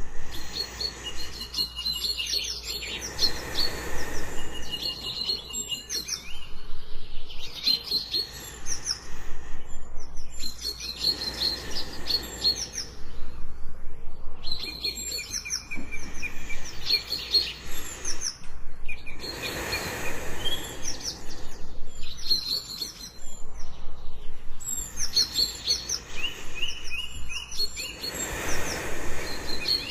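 Many birds chirping and whistling over one another without pause. Under them, a slow swell of breathing comes about every eight seconds, as of a person asleep.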